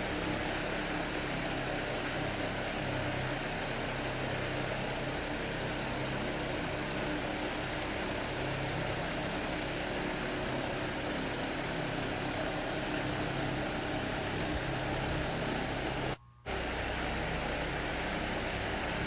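Tron 60 cm wall fan running steadily: an even rush of air with a low motor hum underneath. It cuts out for a split second about sixteen seconds in.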